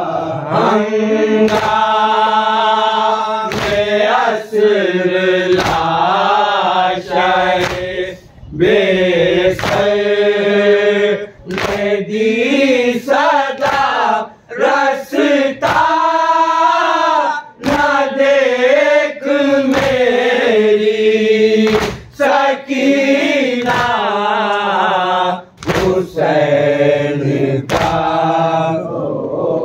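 A group of men chanting a nauha, a Shia mourning lament, in unison and following a leader in long, wavering sung lines. Sharp slaps of chest-beating (matam) keep time about once a second.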